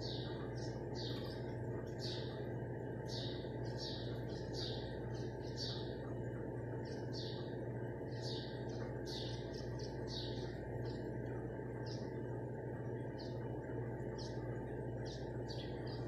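Small birds chirping: a string of short, high chirps repeated irregularly, busiest through the first ten seconds and thinning out toward the end, over a steady low hum.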